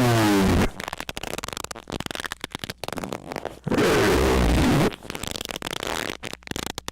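Loud, distorted squeaks: a short squeal that glides in pitch at the start and a longer squeal about four seconds in, with crackling between them.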